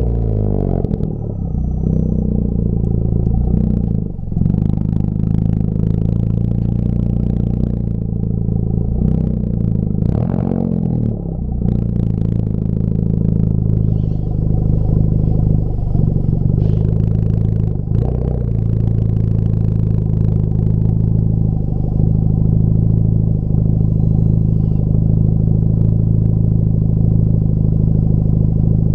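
Exhaust drone of a Honda Civic Type R FK8's turbocharged four-cylinder through a Tomei full-titanium muffler at cruising speed: a loud, steady low hum. Its pitch dips and shifts several times in the first twenty seconds, then holds steady.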